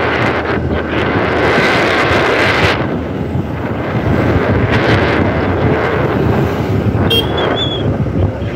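Wind buffeting the microphone over the steady running of a scooter and its tyre noise on the road. A short high-pitched chirp sounds about seven seconds in.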